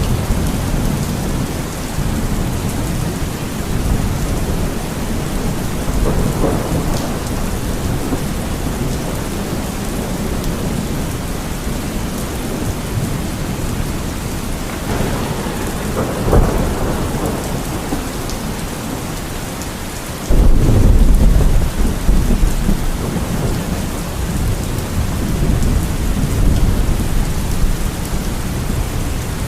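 Steady heavy rain falling, with thunder rumbling through it. A loud clap of thunder breaks in suddenly about two thirds of the way through and rolls on.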